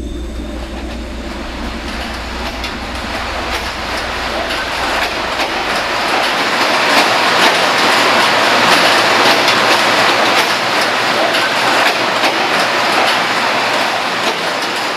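Automated fish-tagging and adipose fin-clipping machinery clattering with many rapid clicks over a dense rushing noise, growing louder over the first several seconds and then holding steady.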